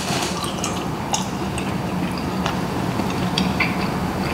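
Close-miked chewing of soft braised oxtail meat: small wet mouth clicks and smacks, scattered irregularly.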